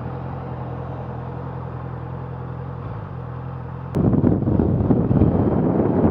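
Honda CBR650 inline-four motorcycle engine running steadily at low revs. About four seconds in, a sudden loud rush of wind on the camera's microphone covers it.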